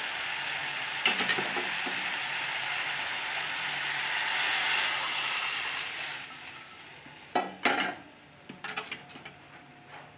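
Chicken in a dark soy-and-vinegar sauce sizzling in a hot aluminium wok, the hiss swelling as chicken stock is poured in and then dying away about six seconds in as the liquid covers the pan. A few sharp clanks of metal pots follow.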